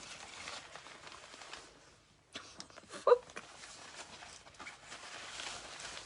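Soft rustling and handling noise with scattered small clicks, and a brief pitched sound about three seconds in.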